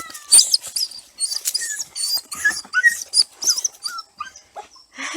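Young beagle puppies squeaking and whimpering: many short, high-pitched cries in quick succession, each wavering in pitch.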